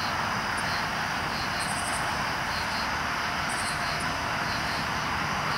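A steady hiss-like noise, with insects chirping faintly in short, very high-pitched pulses that come in small groups every second or two.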